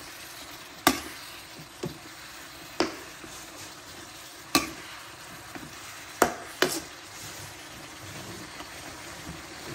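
Food sizzling in a wok while a spatula stirs it, knocking sharply against the pan six times at uneven intervals.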